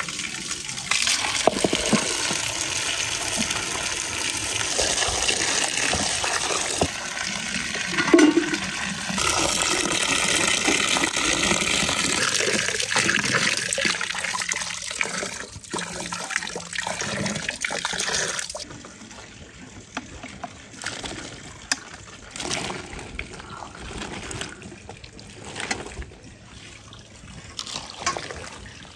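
Water pouring from a stone spring's spout into a metal basin, splashing over apple slices being rinsed by hand. After about 18 seconds it stops suddenly, leaving only quieter scattered clicks and knocks.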